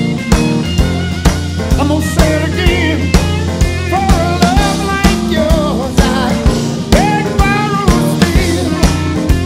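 Rock music with a steady drum beat of about two beats a second over a bass line, a singing voice coming in about two seconds in.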